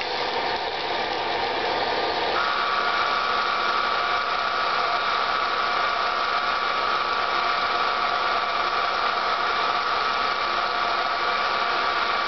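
Film projector running, a steady mechanical whir and rattle with a high steady whine that strengthens about two seconds in.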